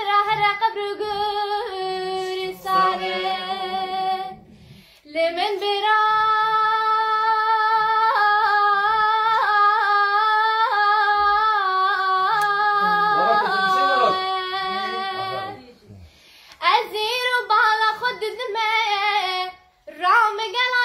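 A young girl singing a Kurdish song unaccompanied, in long held notes with wavering ornaments. She breaks off briefly between phrases.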